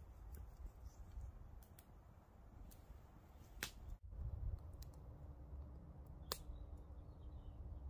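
Quiet outdoor ambience: a low rumble of wind on the microphone with a few sharp clicks scattered through it, the two loudest about three and a half and six seconds in.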